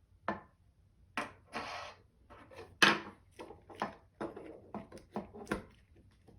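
Irregular clicks and knocks of small combat-robot parts and tools being handled and set down during a teardown. There is a short scraping rub about one and a half seconds in, and the sharpest knock comes about three seconds in.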